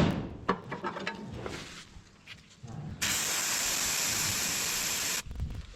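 Aerosol treatment spray hissing onto a cow's hoof in one steady burst of about two seconds, starting about three seconds in and cutting off sharply. Before it come light knocks and handling sounds.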